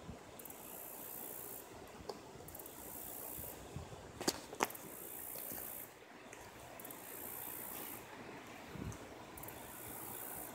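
High, hissing insect chorus that comes and goes in stretches of a second or two, with two sharp clicks a moment apart about four and a half seconds in.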